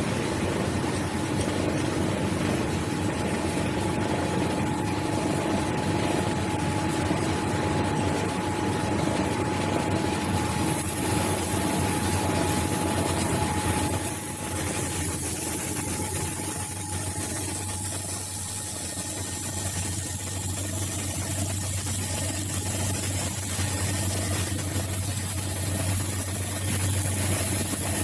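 Homemade lathe driven by a 0.75 kW three-phase electric motor, running steadily while turning a soft nylon test piece: a constant hum with a steady mid tone over rough mechanical noise. A high whine joins about a third of the way in, and the rough noise eases about halfway.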